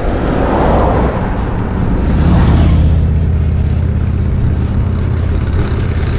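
Wind rushing over the microphone of a bike-mounted camera while riding, with a motor vehicle passing about two seconds in and a low engine hum that carries on afterwards.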